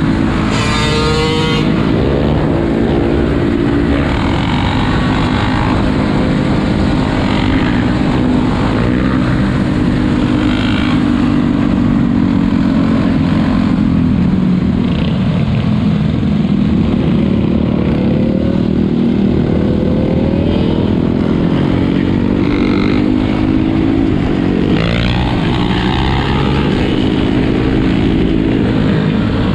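Many four-wheeler (ATV) and dirt bike engines running together in a steady drone, with a few engines revving up briefly near the start, around two-thirds of the way in, and again near the end.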